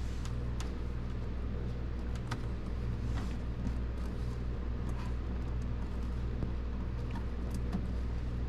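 A steady low hum, with a few scattered light clicks and taps of hand tools and fasteners being handled at the throttle body.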